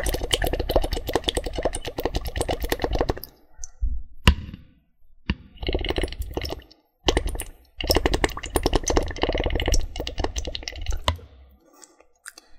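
Air blown through an eco-friendly drinking straw into a bowl of water, bubbling in rapid crackling bursts: three long bouts with a short pause and a single click between the first two.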